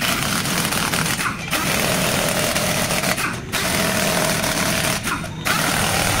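Pneumatic impact wrench hammering on a truck's wheel lug nuts in four short runs, with brief pauses between them.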